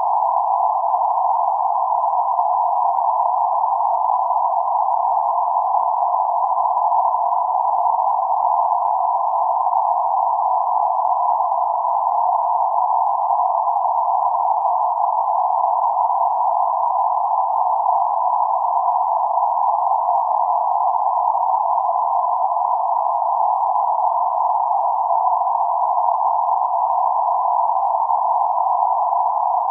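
Synthetic band-limited noise centred around 848 Hz: a steady, even hiss confined to roughly 500 Hz to 1.5 kHz, with nothing above or below, so it sounds like a narrow, tone-like rushing rather than full white noise.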